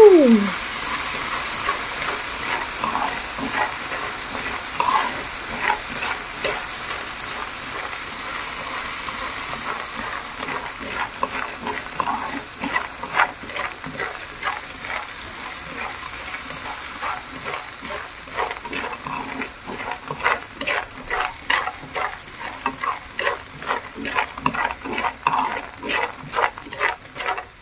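Raw peanuts in a hot frying pan sizzling and steaming as a freshly added liquid seasoning mixture boils off, while they are stirred. The hiss slowly fades, and the clicks and rattles of the nuts being turned come quicker and more often toward the end. A brief falling tone at the very start.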